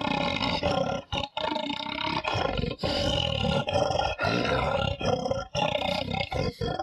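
Homemade animal roars: a person's voice roaring and growling into an empty tin-foil roll tube, a string of rough roars with short breaks between them.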